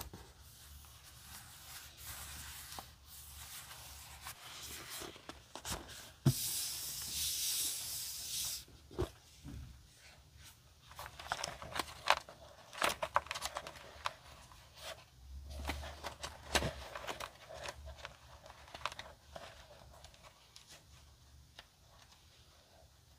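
Paper being torn in one long pull of about two seconds, starting roughly a quarter of the way in. Then come crisp rustling and ticking as fingers riffle through a tightly packed stack of paper scraps in a box.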